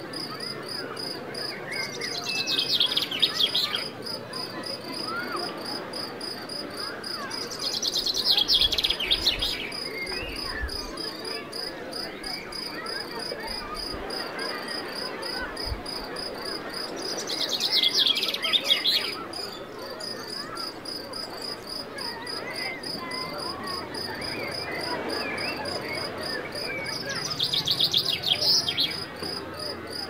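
Crickets chirping in a steady high trill, with louder insect buzzing swelling up four times, about every nine seconds. Scattered small bird chirps and a wash of sea lie behind.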